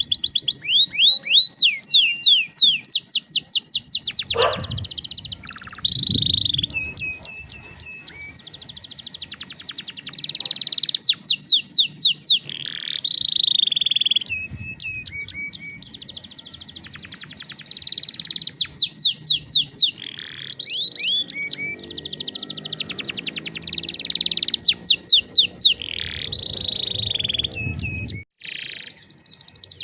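Domestic canary singing a long, loud song of fast repeated trills and rolls, phrase after phrase with scarcely a break.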